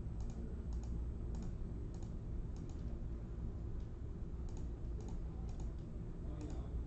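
Irregular light clicks of typing on a computer keyboard, a few keystrokes a second in scattered runs, over a low steady background hum.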